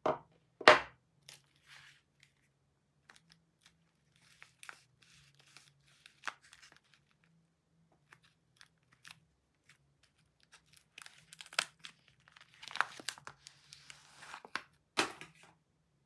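A bar of soap set down on a wooden tabletop with a sharp knock, then a small paperboard soap carton handled and torn open, with paper tearing and crinkling. Another sharp knock comes near the end.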